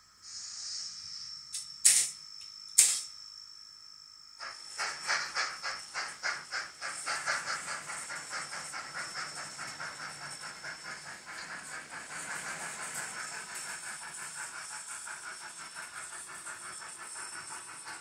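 Tsunami TSU-2200 sound decoder in a Mantua 4-6-2 HO steam locomotive playing its steam sounds: a steady hiss broken by two sharp clicks, then exhaust chuffs that start slowly about four seconds in and quicken into a steady beat as the engine gets under way.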